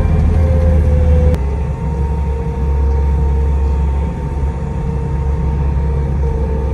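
Small tractor's engine running steadily under load as it drives through mud, with a low hum whose pitch drops slightly about a second and a half in.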